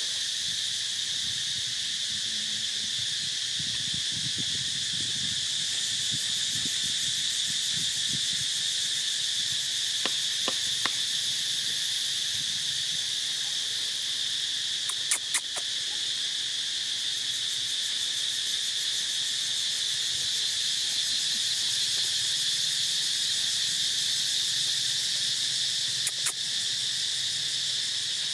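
Steady high-pitched drone of an insect chorus, unbroken throughout, with a few sharp clicks scattered through it.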